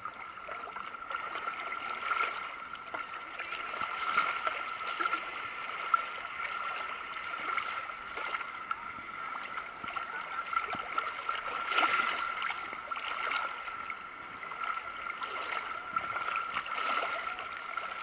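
Sea water sloshing and lapping against a camera held at the waterline, rising and falling irregularly, with a steady high whine underneath.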